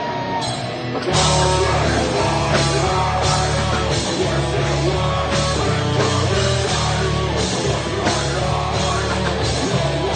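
Doom metal band playing live: held guitar notes, then about a second in the full band comes in heavily, with guitars, deep bass and drums striking with cymbal crashes at a slow, regular beat.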